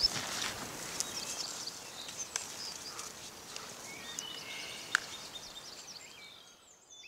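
Quiet outdoor ambience: a steady soft hiss with a few sharp small clicks and faint short bird chirps, fading out near the end.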